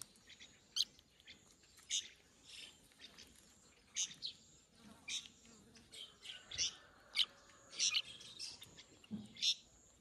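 Fledgling brown-breasted bulbuls giving short, high chirps over and over, about one every half second to a second, begging to be fed.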